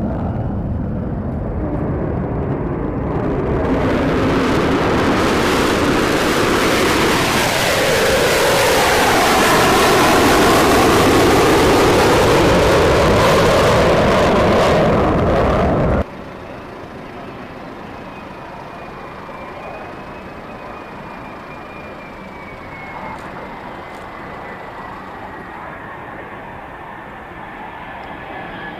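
F-35A Lightning II single jet engine roaring as the jet passes low overhead, swelling over the first few seconds with a sweeping, phasing quality at its peak. The roar cuts off abruptly about 16 seconds in, leaving a much quieter steady jet noise with a faint high whine that slowly falls in pitch.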